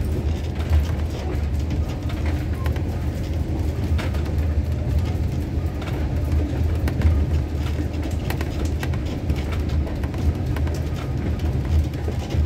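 Steady low rumble of a moving train heard from on board, with a few faint scattered clicks from the running gear.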